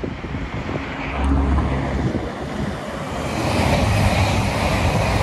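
Express passenger train passing close by at speed: a low engine note from about a second in, then a rushing of wheels on rail that swells from about three seconds in as the coaches go by, with some wind on the microphone.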